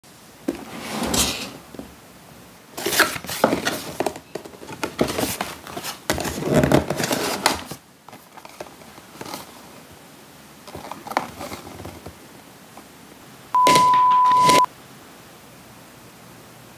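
Cardboard box and paper packaging being handled: rustling, scraping and light tapping for about eight seconds, then fainter, sparser handling. About fourteen seconds in, a steady high beep lasts about a second and is the loudest sound.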